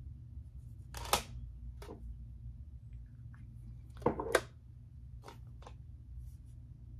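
A few sharp clicks and clacks of small objects being handled and set down, the loudest a quick double clack about four seconds in, over a low steady hum.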